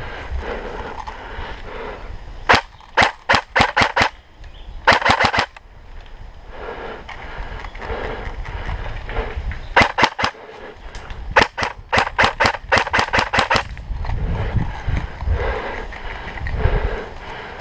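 Airsoft electric guns (AEGs) firing in short bursts and single shots, each shot a sharp snap. There is a spaced string of shots about two and a half seconds in, a quick fast burst near five seconds, and more strings around ten seconds and from about eleven to thirteen and a half seconds.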